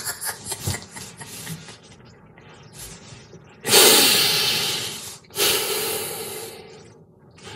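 A man's laugh dying away in short breathy bursts, then two long, heavy breaths out, one about three and a half seconds in and one about five and a half seconds in, each fading away.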